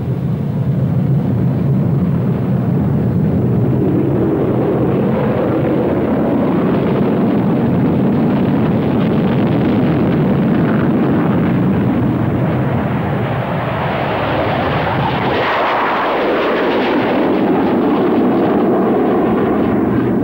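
Twin Rolls-Royce RB199 jet engines of the British Aerospace EAP running at full power with afterburners lit on takeoff, a loud, steady jet noise. About fifteen seconds in, the deep rumble drops away and the sound turns higher as the aircraft climbs away.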